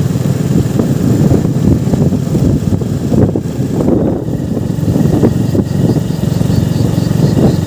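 Hero Glamour 125 motorcycle's single-cylinder engine running steadily while riding, with wind buffeting the microphone.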